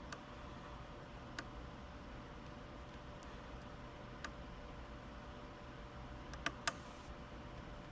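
Faint, occasional small clicks of a lock pick working the pin tumblers of a UAP zero-lift euro cylinder under tension, a few seconds apart, with the loudest ones coming close together near the end.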